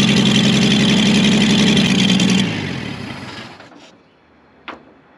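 Freshly installed truck engine idling steadily on fuel gravity-fed from a test bottle, then switched off about two and a half seconds in and running down to a stop. It is run only briefly because there is no radiator fitted yet. A single click follows near the end.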